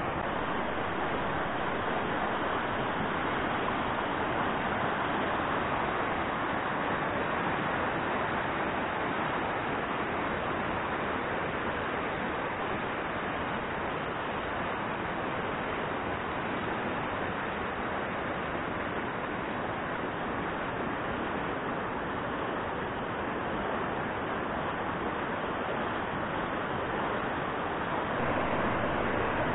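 River water rushing steadily past, an even wash of noise with no breaks, a little louder near the end.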